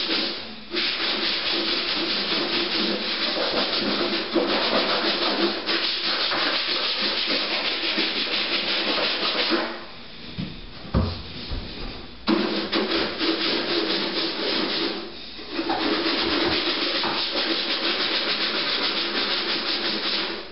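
Hand scrubbing of a grimy refrigerator surface: steady, scratchy back-and-forth rubbing. It stops for about two seconds near the middle and briefly again a few seconds later.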